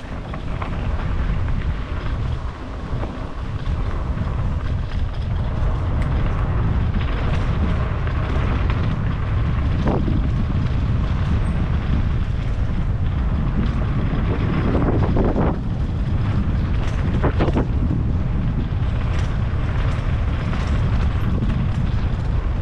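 Steady low rumble of wind noise on the microphone, with a few brief swooshes.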